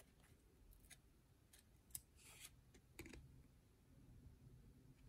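Faint light clicks and one brief swish of glossy trading cards being slid and flicked between the fingers while a pack is thumbed through.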